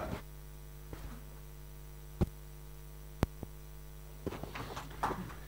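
Steady electrical mains hum from the venue's sound system between questions, broken by two short knocks about two and three seconds in.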